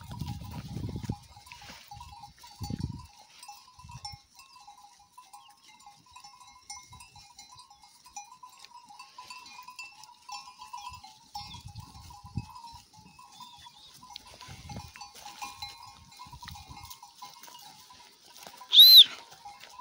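Flock of Kangal sheep and goats grazing, with faint flock sounds, a low rumble in the first second and a few soft low thuds. Near the end a short, loud high whistle rises and falls in pitch.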